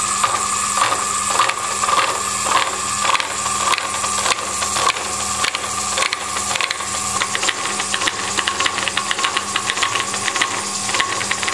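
Disc milling cutter on a lathe-mounted milling attachment cutting a spline groove along a metal shaft. The motor gives a steady whine while the cutter teeth make rapid clicks, which come faster in the second half. This is a lighter pass removing leftover material between splines, so it is run at higher motor speed.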